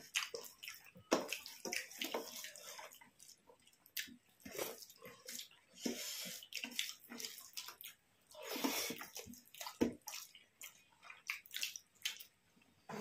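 Eating sounds from a meal of rice and curry: irregular short bursts of food being mixed and chewed, with brief gaps between them.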